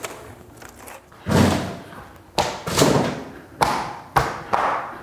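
A series of about seven thumps and taps, roughly one every half second from about a second in: interlocking plastic floor tiles being snapped into place by hand and underfoot.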